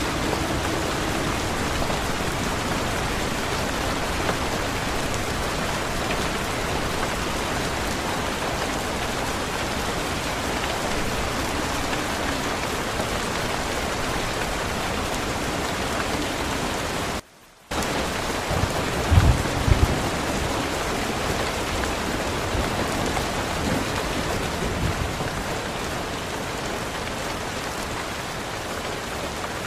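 Steady rain falling, an even dense hiss. About halfway through it cuts out for half a second. Soon after come low rumbles of thunder, the loudest a couple of seconds after the gap and a weaker one some seconds later.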